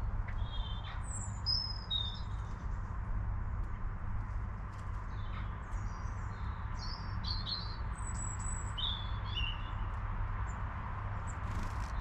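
Small songbirds chirping and calling in short, high, quick phrases scattered through, busiest in the middle, over a steady low rumble.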